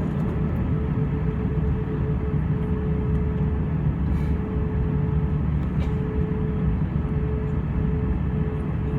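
Airbus A320 cabin noise: the jet's engines running with a steady deep rumble and one constant humming tone, no change in pitch.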